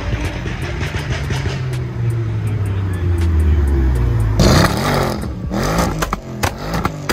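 A car engine running with a low steady drone, then revved hard about four seconds in, its pitch sweeping up and down several times, over a steady music beat.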